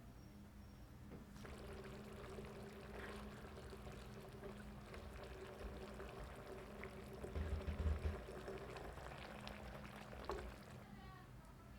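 Liquid being poured for about nine seconds, with a low bump near the middle, then stopping.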